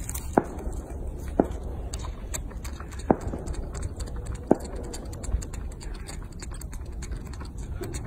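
Baby macaque sucking at a small plastic drink bottle, with four sharp mouth clicks about a second or more apart in the first half, over a steady low rumble.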